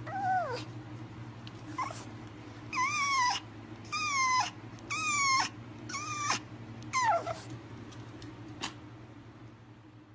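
Pomeranian puppy whining: a series of short, high whines that fall in pitch, about one a second, loudest in the middle of the run.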